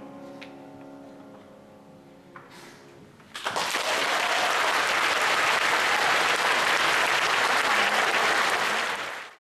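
The last held chord of a Steinway grand piano and orchestra fades away. About three seconds in, a concert audience breaks into loud, steady applause.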